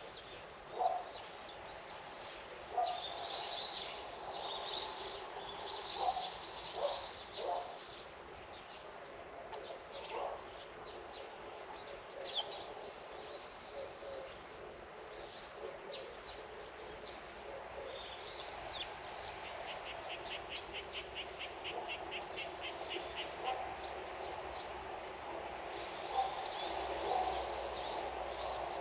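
Birds chirping and calling, with a rapid, even trill of about eight notes a second roughly two-thirds of the way through, over a steady outdoor hiss.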